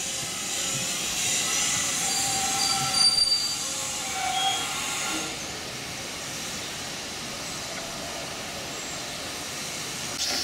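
GWR Manor-class 4-6-0 steam locomotive 7828 Norton Manor and its train rolling slowly into a station, with high-pitched brake and wheel squeals, loudest about three seconds in. Then quieter, steady running noise as it creeps along the platform.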